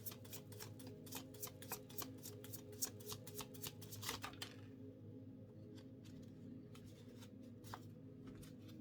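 Oracle card deck shuffled by hand: a rapid run of card slaps and flicks for about four and a half seconds, then a few scattered card clicks as cards are handled. A faint steady low hum lies underneath.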